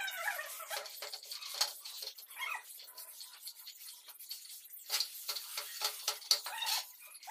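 Metal straightedge scraped and dragged across wet sand-cement floor mortar as it is levelled, giving gritty scraping strokes and small knocks, with short squeaky sounds near the start.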